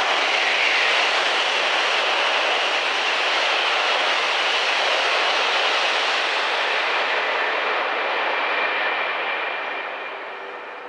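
E4 series double-decker Shinkansen, two 8-car sets coupled, passing through at high speed: a steady rush of wheel and wind noise that fades over the last couple of seconds as the train pulls away.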